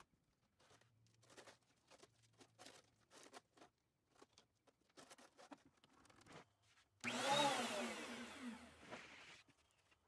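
Delta 12½-inch portable thickness planer's electric motor switched on, whining up for an instant and then winding down in falling pitch over about two seconds as its power cuts out: the sign of the planer tripping the circuit breaker.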